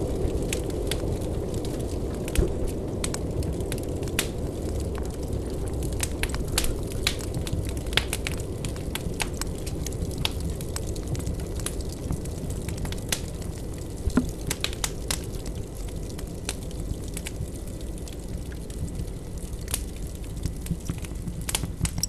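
Irregular crackling and popping, several clicks a second, over a steady low rumble.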